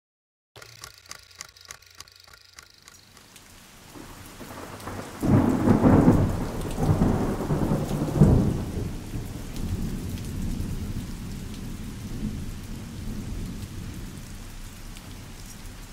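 Thunderstorm: a short run of even ticks, about four a second, then a loud rolling thunderclap about five seconds in, with a second surge a few seconds later, giving way to steady rain that slowly fades.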